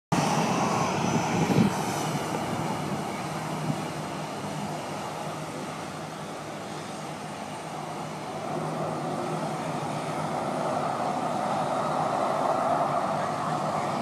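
Boeing 737's twin jet engines running at low thrust as the airliner taxis and turns onto the runway, with a high whine in the first couple of seconds. The engine sound grows louder over the last few seconds.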